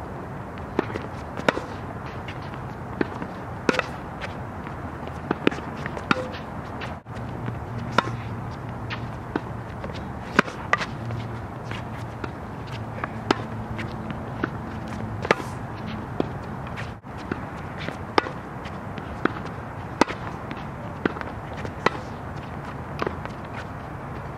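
Tennis balls struck by a racket over and over in a rally on a hard court: sharp pocks roughly every second, with ball bounces between them, over a steady low rumble.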